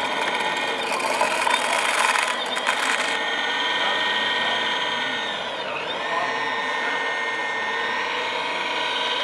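Hydraulic pump of a radio-controlled model Volvo excavator whining steadily while it works the boom and bucket in sand. There is a harsher rasping noise over the first three seconds, and the pitch dips briefly and recovers a little past the middle as the load changes.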